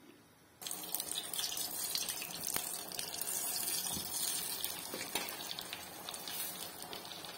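Carom seeds and dried red chillies sizzling in hot fat in a small tempering ladle over a gas flame, a steady hiss with scattered crackles that starts suddenly about half a second in.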